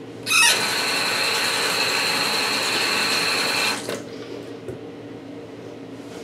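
Bathroom sink's chrome mixer tap turned on about a third of a second in, water gushing into the basin for about three and a half seconds with a steady high tone in the flow, then shut off.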